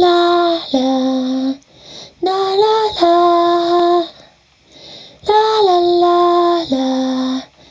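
A woman's voice singing slow phrases of long held notes with no accompaniment, three phrases with short breaths between, some notes stepping down to a lower pitch.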